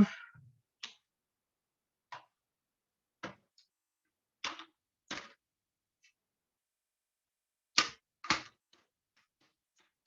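Plastic screen bezel of a Lenovo Ideapad Gaming 3 laptop clicking as its clips snap onto the display lid: a scattering of short sharp clicks at uneven intervals, the loudest two close together near the end, followed by a few faint ticks.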